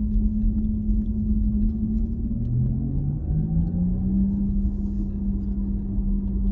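Porsche Taycan GTS heard from inside the cabin on the move: a low road rumble under a steady electric drive hum, whose pitch dips and then steps back up about three seconds in.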